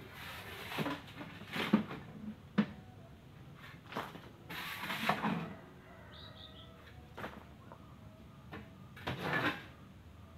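A shovel scraping and scooping gravel in a pickup truck's bed and throwing it down, in irregular strokes with pauses between them. A bird chirps three quick times about six seconds in.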